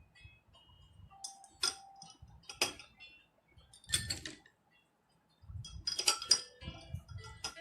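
Ice cubes clinking against a drinking glass: a few single ringing clinks, then a quick run of clinks about six seconds in, over soft handling knocks.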